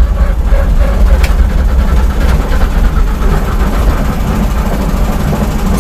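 Vehicle engine and drivetrain running steadily under load in fifth gear, heard from the cab: a heavy low rumble with a gearbox whine in fifth, which the owner puts down to too little lubrication at low revs.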